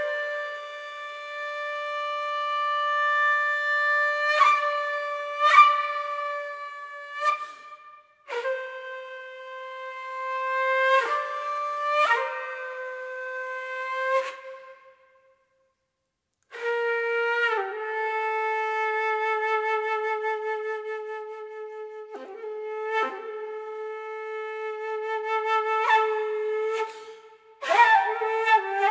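Solo concert flute improvising: long held notes that step lower from phrase to phrase, with a short pause about eight seconds in and a brief silence around fifteen seconds. Near the end it breaks into a quick run of falling notes.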